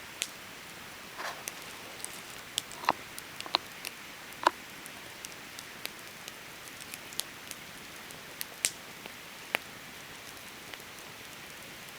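Wood campfire crackling: irregular sharp pops and snaps over a steady hiss, the loudest about four and a half seconds in.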